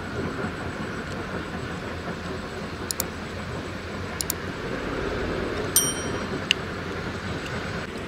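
Steady rumbling background noise, over which a subscribe-button animation plays its sounds: two quick double mouse clicks about a second apart, then a short bell ding, then one more click.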